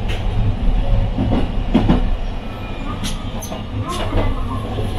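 Toden Arakawa Line streetcar running, heard from on board: a steady low rumble with a few sharp clicks of the wheels over the rails, most of them about three to four seconds in.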